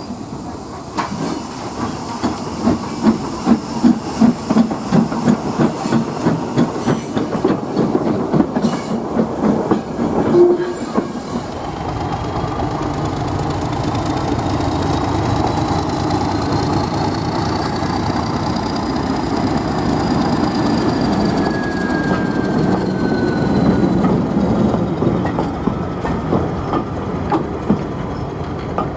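Heritage railway train running along the track, its wheels clicking rhythmically over the rail joints, the clicking loudest in the first ten seconds. A faint high squeal rises and falls in the middle.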